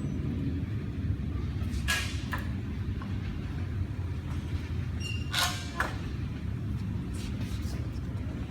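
Steady low rumble with a few short clatters, one about two seconds in and a louder pair about five and a half seconds in.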